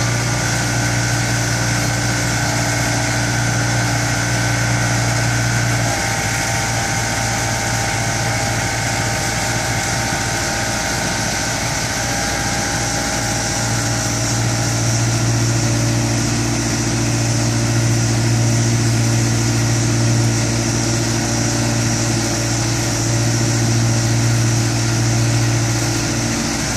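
Finn BB302 bark blower running steadily while blowing mulch through its hose: a constant engine and blower drone with a hiss above it. The low hum dips a little about six seconds in and picks up again around fourteen seconds.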